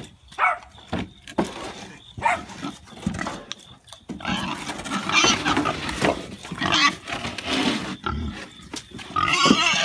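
A large market-weight hog grunting: a few short grunts in the first seconds, then a longer run of loud, harsh calls from about four seconds in, and another loud one near the end.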